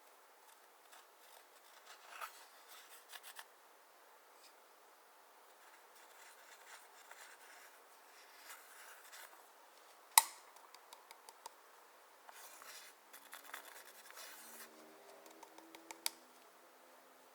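Clear slime and eyeshadow being worked by hand: quiet, intermittent scraping and rubbing with small crackling clicks, and one sharp click about ten seconds in.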